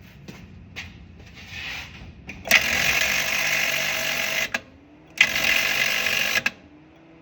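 Small high-speed electric power tool whirring in two bursts, about two seconds and then just over one second, after a few light clicks.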